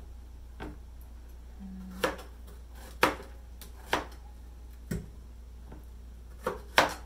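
Kitchen knives cutting ripe persimmons on cutting boards. Single sharp knocks of the blade hitting the board come about once a second, with a quick double knock near the end.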